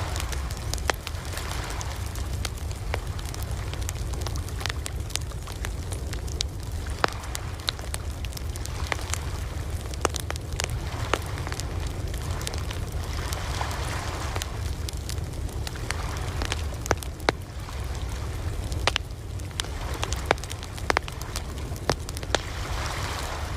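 Wood campfire crackling with frequent sharp pops, over a steady low rumble. Ocean waves wash in slow swells, rising about halfway through and again near the end.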